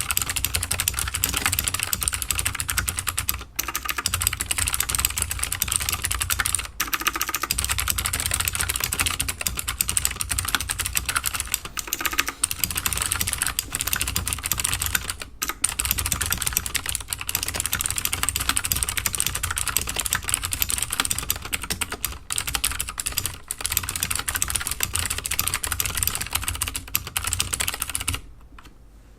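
Fast, continuous typing on a mechanical keyboard with modded 78 g Gateron Blue clicky switches in an acrylic half plate, under GMK keycaps. A dense clatter of key clicks with a few brief pauses, which stops near the end.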